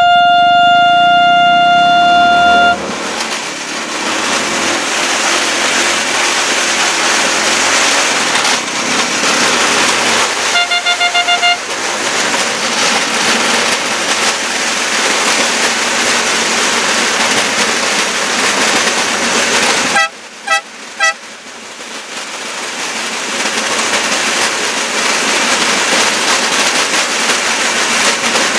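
Horn of a homemade rail draisine moving along the track: one long blast lasting a few seconds at the start, a quick run of short toots about ten seconds in, and a few short beeps about twenty seconds in. Under them runs a steady rushing noise from the moving vehicle.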